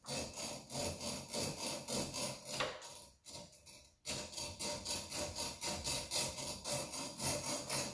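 Hacksaw blade cutting into the coiled steel outer housing of a car throttle cable, in quick back-and-forth rasping strokes, a few a second, with a pause of about a second a little before the middle. The cut goes around the housing to shorten it, stopping short of the inner wire.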